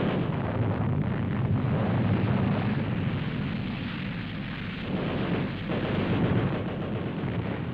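Newsreel sound-effect track of explosions: a continuous low, noisy rumble that eases off slightly toward the end.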